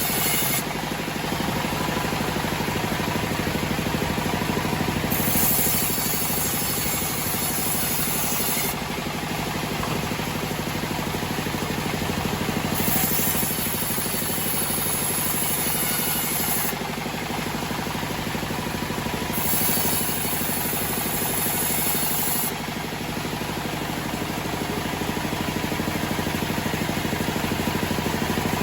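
Homemade band sawmill running with a steady mechanical drone. A high hiss comes in three times for a few seconds each.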